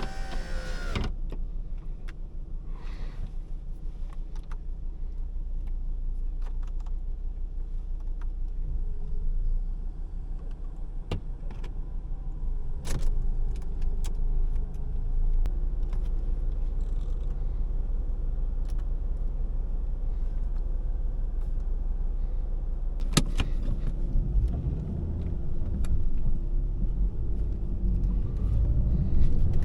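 Volvo S40 2.4i inline five-cylinder petrol engine and car running at low speed in town, heard as a steady low rumble from inside the cabin, with a few scattered clicks and knocks.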